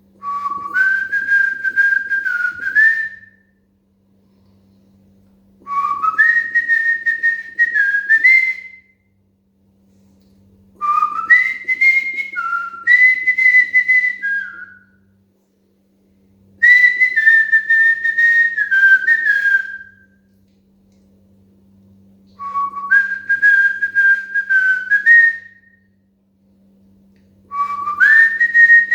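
Cockatiel whistling a song: a short phrase of clear whistled notes that step up in pitch and end on a higher note. The phrase comes six times, about every five to six seconds, with pauses in between.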